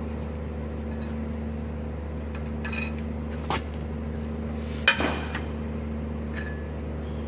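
A few sharp metallic clinks of steel hand tools and a socket being handled, the loudest about five seconds in, over a steady low hum.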